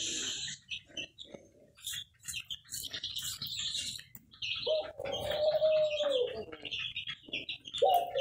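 Small cage birds chirping throughout, with a dove giving a long, low coo about halfway through and another starting near the end.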